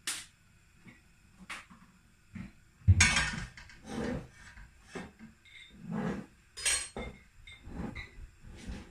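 Kitchen utensils and dishes clinking and knocking: a dozen or so separate clinks and knocks, the loudest about three seconds in.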